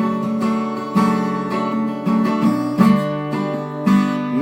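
Acoustic guitar strumming sustained chords, a fresh strum about once a second, between sung lines of a song.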